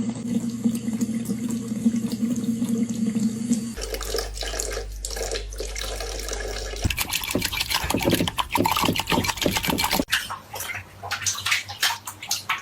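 Water running and splashing, with a steady hum at first and irregular splashing from about halfway through.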